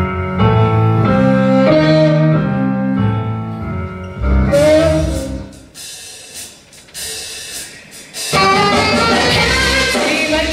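Live theatre orchestra playing jazzy show-tune music: held notes stepping up and down in the low and middle range, a short sliding note about four and a half seconds in, a quieter stretch, then the full band comes back in loudly about eight seconds in.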